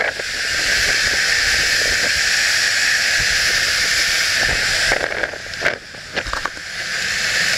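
Steady rush of wind and churning wake water on a small powerboat running at speed. The rush drops away briefly about five and a half seconds in, with a few knocks, then builds again.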